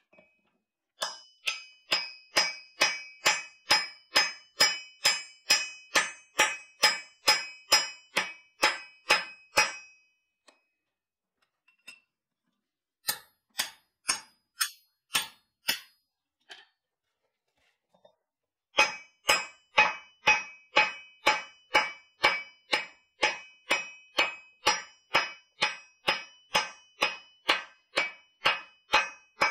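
Hand hammer blows driving a steel drift through the hot eye of a forged hammer head, each strike ringing on in a clear metallic tone. Two runs of steady blows, about two a second, are broken by a short pause with a few lighter taps.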